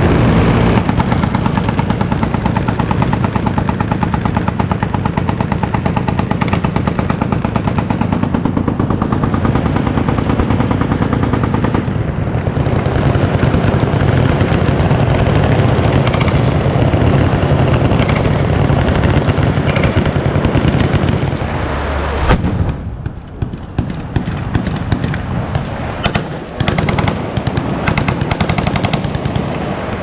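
Massed automatic fire from many machine guns on a firing line, a dense continuous rattle of overlapping bursts. About 22 seconds in it thins out abruptly to scattered, irregular bursts and single shots.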